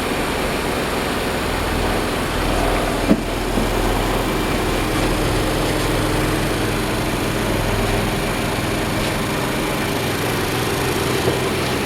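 Yanmar 6KY-ET six-cylinder marine diesel running steadily, with a single sharp knock about three seconds in and a smaller one near the end.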